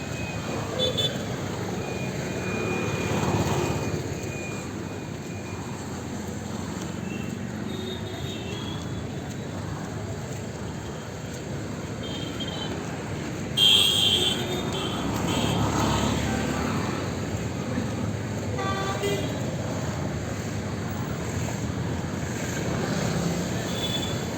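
Busy Indian city street traffic: a steady wash of engines and tyres, with short vehicle horn toots now and then, the loudest one a little past halfway.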